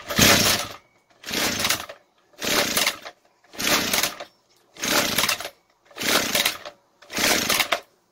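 Backpack brush cutter's two-stroke engine being cranked by its recoil starter pull cord seven times in quick succession, about one pull a second, with the spark plug out. It never fires: no spark reaches the plug.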